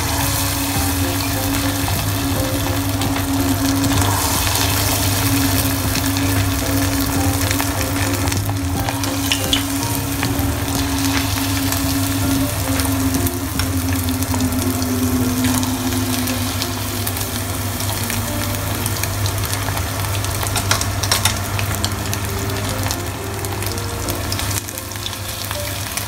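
Battered chicken pieces deep-frying in hot oil in a stainless steel pot: a steady, dense sizzle, over a steady low hum, with a few brief clicks.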